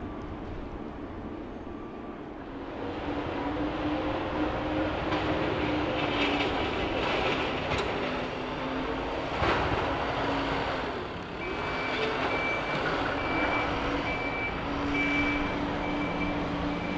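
Diesel engine of a snow-clearing loader running with a steady drone. About two-thirds of the way through, its reversing alarm starts beeping at an even pace, about one and a half beeps a second.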